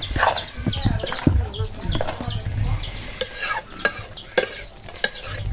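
Metal ladle stirring and scraping in a metal kadai of curry, with sharp clicks of metal on metal. Short, high, falling chirps of chickens repeat several times a second in the background.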